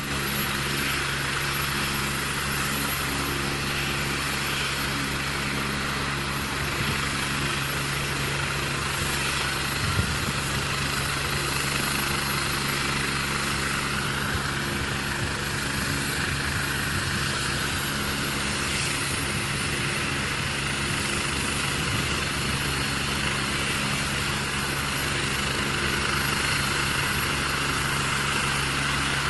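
Helicopter running steadily: its engine and rotor give a constant hum with several held tones over a wide rushing noise, growing slightly louder near the end.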